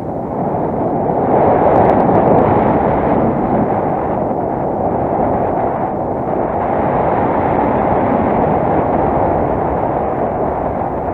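Loud wind noise from airflow buffeting an action camera's microphone on a paraglider harness in flight, a steady rushing rumble that grows louder about a second and a half in.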